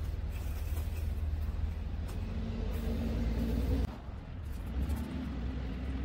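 Loaded concrete mixer truck's diesel engine pulling uphill, a steady low rumble that rises slightly in pitch, then eases off abruptly about four seconds in.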